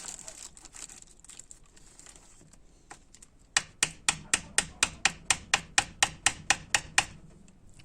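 Soft rubbing of small parts being handled, then, from about halfway through, a steady run of sharp taps, roughly four to five a second, that stops after about three and a half seconds.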